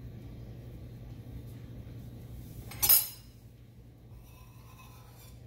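A single sharp clink of a kitchen knife being handled against a hard kitchen surface about three seconds in, over a steady low hum.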